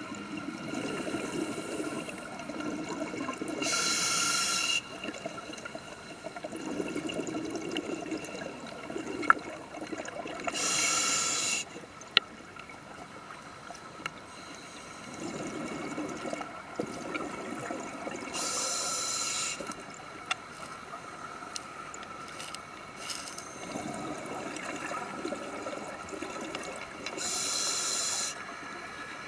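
Scuba diver breathing through a regulator, heard underwater: four slow breath cycles about seven to eight seconds apart, each a short bright hiss alternating with a longer low rumble of bubbles.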